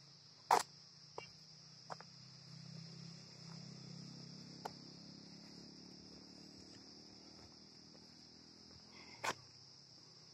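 A steady, high-pitched insect chorus. Over it come a few sharp clicks and knocks, the loudest about half a second in and another near the end, and a low hum that rises and fades in the middle.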